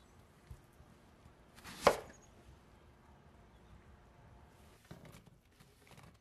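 A kitchen knife cuts through a whole onion and strikes a wooden cutting board in one sharp chop about two seconds in. Faint knocks and rustles follow near the end as onion pieces are dropped into a glass bowl.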